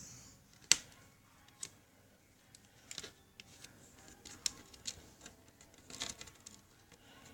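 Scattered light clicks and taps of plastic laptop parts being handled as the screen cable is pressed back down into its retaining clips. The sharpest click comes less than a second in.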